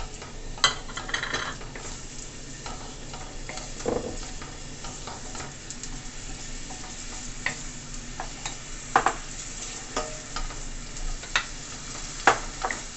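Diced onion sizzling in hot oil in a stainless steel sauté pan while a wooden spoon stirs it, with the spoon scraping and now and then knocking sharply against the pan.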